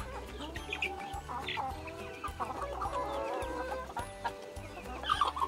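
Chickens clucking over background music with a steady beat.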